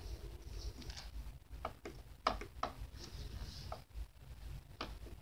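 Chrome fidget spinner spinning down to a stop on a wooden table, with five or six light, sharp clicks and taps from the spinner and toys being handled. A low steady hum runs underneath.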